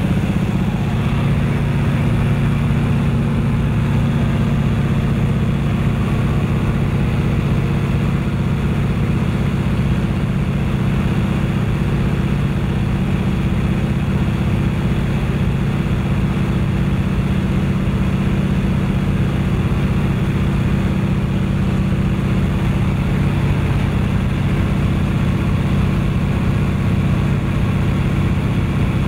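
De Havilland Canada Beaver floatplane's engine and propeller droning steadily in level cruise flight, with airflow rushing past the airframe.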